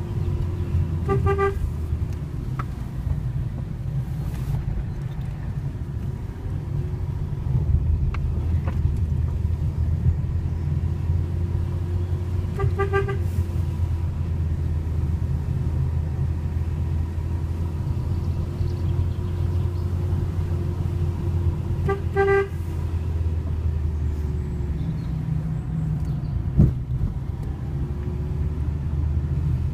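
Fiat Panda's horn giving three short toots about ten seconds apart, a warning to oncoming traffic on a one-lane mountain road, over the steady low rumble of the car's engine and tyres.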